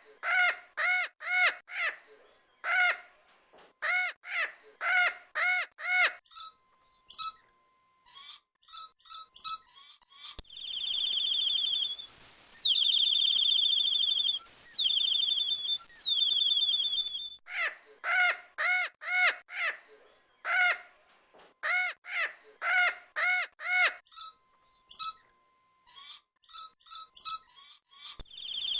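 Parrot calls: quick runs of loud, pitched calls, then higher short chirps. About ten seconds in, a separate recording of rapid high trilled chirping over a hiss runs for about seven seconds. The loud call runs then return, and the trill starts again near the end.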